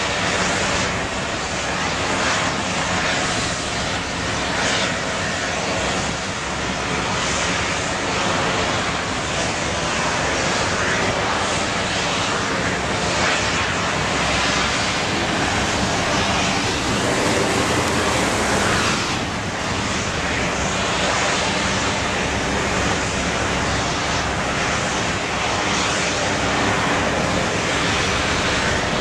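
Steady, loud machinery drone with a wash of wind and water noise, unchanging throughout.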